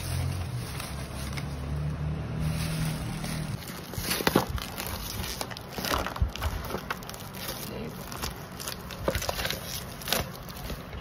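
Clear plastic wrap crinkling and crackling as it is peeled off and handled around product boxes. A low hum runs under the first few seconds, and sharp crackles come thickly from about four seconds in.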